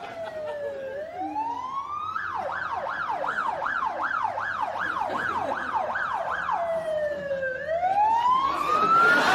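Emergency vehicle siren: a slow wail gliding down and up, switching to a fast yelp of about two and a half sweeps a second, then back to a slow wail. A rushing noise grows louder under it near the end.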